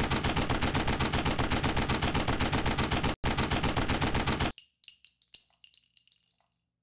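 Rapid automatic gunfire, about ten shots a second, with a brief break about three seconds in, stopping at about four and a half seconds. A few scattered light metallic clicks and ringing pings follow.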